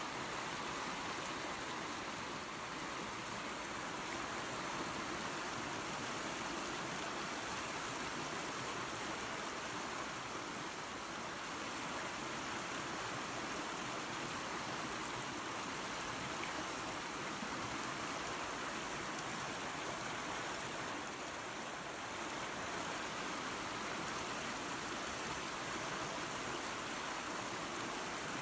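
A creek and small waterfall running steadily: an even rush of water with no breaks.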